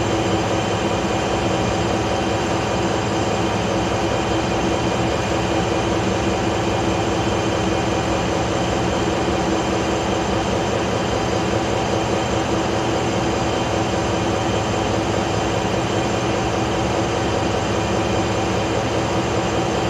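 Diesel generator engine running steadily at constant speed: a loud, even drone with several fixed tones that does not rise or fall.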